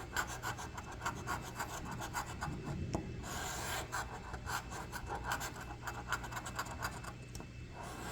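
Scratching the coating off a scratch-off lottery ticket in quick, repeated strokes, with a couple of brief pauses.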